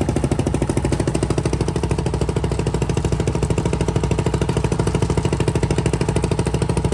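Fishing boat's engine running steadily with a fast, even throb.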